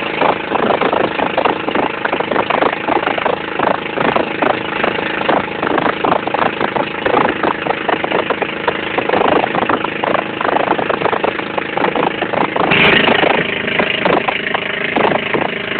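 Outrigger boat's engine running steadily under way, with water splashing and slapping along the hull and outrigger. A louder rush of spray comes near the end.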